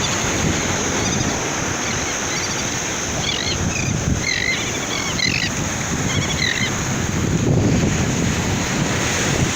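Surf washing onto a beach, a steady rush with wind buffeting the microphone. Several short, high bird calls come in the middle.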